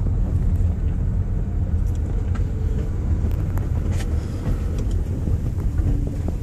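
Car rolling slowly along a dirt farm track, heard from inside the cabin: a steady low rumble of engine and tyres, with a few light clicks scattered through it.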